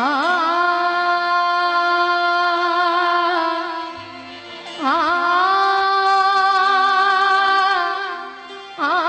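A female singer holding long, steady notes in a Sindhi folk-Sufi style, each phrase opening with a quick ornamental waver in pitch. The voice falls away twice for a breath, a new phrase starting about five seconds in and another near the end.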